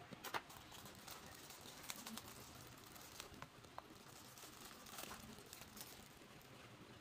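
Faint handling of a plastic model kit: a few sharp clicks of small plastic parts, the strongest near the start, and a clear plastic bag crinkling as rubber tyres are pulled out of it.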